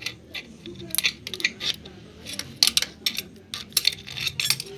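Irregular light metallic clicks and clinks of steel parts being handled and fitted inside an industrial high-speed sewing machine, as the presser-foot lifter rod is put in place.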